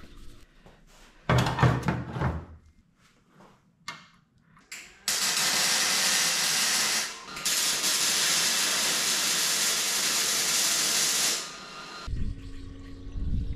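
Loud steady hiss of compressed air from a shop tool, in two runs of about two and four seconds with a short break between them. A short mechanical burst comes about a second in, and a low steady hum starts near the end.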